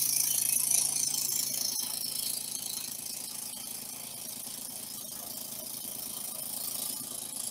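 Hegner scroll saw running steadily with a spiral blade cutting a tight spiral in a thin wood sheet: a constant mechanical rattle over a low hum.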